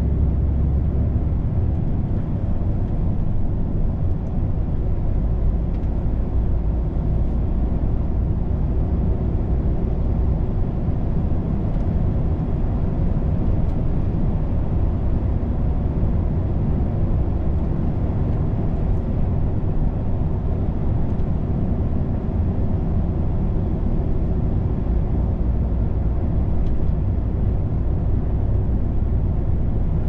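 Inside the cab of a DAF XF 510 truck at road speed: the PACCAR MX-13 straight-six diesel runs with a steady low drone, mixed with tyre and road noise.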